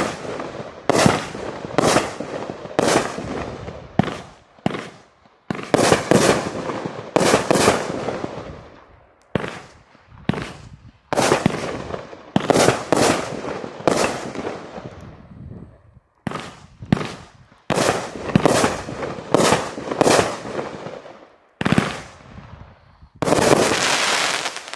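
A 500-gram, 20-shot firework cake (JL2048S Indian Chief) firing shot after shot: a long run of sharp bangs, mostly about a second apart with some in quick pairs, each trailing off. Near the end a dense crackle of crackling stars.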